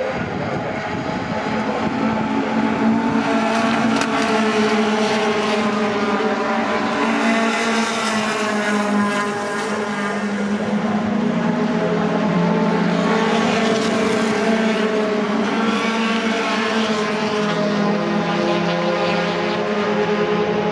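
Several racing pickup trucks' engines running hard together, a continuous loud engine note whose pitches rise and fall gently as the pack goes by.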